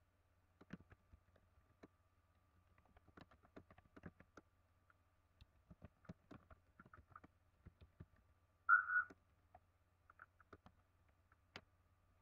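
Faint scattered clicks and taps over a low steady hum, with one short, louder high-pitched chirp about nine seconds in.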